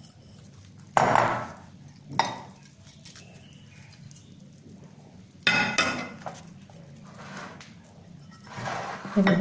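A steel spoon and a small bowl clinking and knocking against a glass mixing bowl while sprout chaat with farsan is stirred. There are a few sharp knocks, the loudest about a second in and another about halfway through, with quieter scraping between them.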